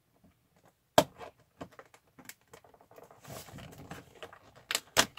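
Fingers prying open a perforated cardboard door on an advent calendar, a corner door that is hard to get out. There is a sharp click about a second in, then scattered tapping clicks, a rougher scraping stretch in the middle, and two more sharp clicks near the end.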